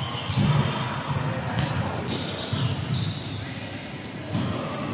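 Indoor volleyball play in a large, echoing sports hall: the ball being struck, with a sharp hit about four seconds in, and short high squeaks of shoes on the court floor.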